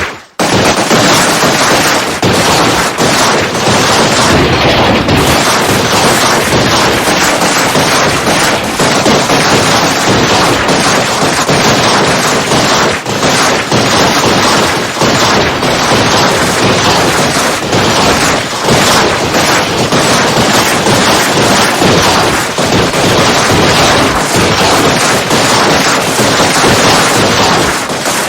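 Gunfight sound effect: dense, continuous gunfire with many overlapping shots and automatic bursts, loud throughout, with a brief break just after the start.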